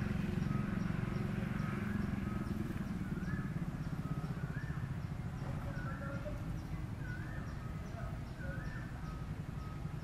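Outdoor ambience: a steady low rumble, with a short rising-and-falling animal call repeated about once a second from a few seconds in, and faint high ticks about twice a second.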